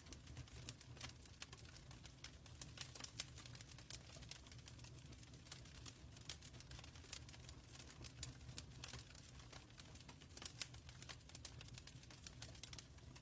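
Wood fire burning in a fireplace, quiet irregular crackles and pops over a low steady rumble.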